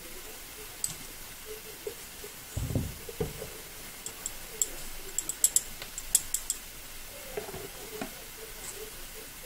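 A glass vanilla bottle set down on the counter with a dull thud, then a run of light, sharp clinks from a metal measuring spoon being handled over a mixing bowl.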